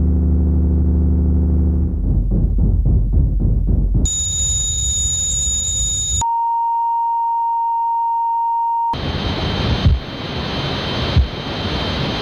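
A sequence of simulated tinnitus sounds, each lasting two or three seconds. First comes a low buzz, then a pulsing low rumble. After that there is a high-pitched whine with a fluttering top tone, then a single steady mid-pitched tone like a test tone. Last comes a hiss with a faint high ring in it.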